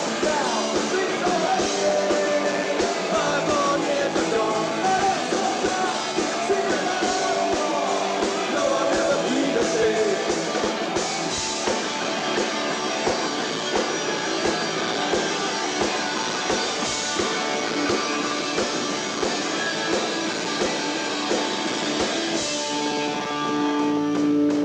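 Punk rock band playing live: a sung lead vocal over electric guitars, bass and drums. Near the end it changes to steady, held guitar notes ringing.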